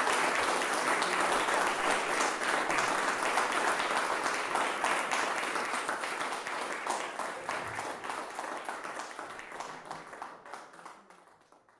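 Audience applause, dense at first, then thinning to scattered claps and fading away over the last few seconds.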